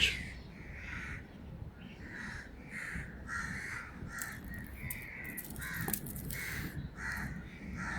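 A bird calling over and over, a string of short harsh calls at about two a second.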